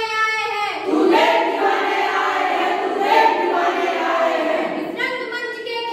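A group of young performers singing together: one clear voice holds steady notes at the start and again near the end, and between them, from about a second in, the whole group sings at once.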